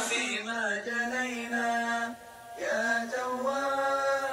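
A solo voice chanting a slow melody in long held notes, with a short break about two seconds in.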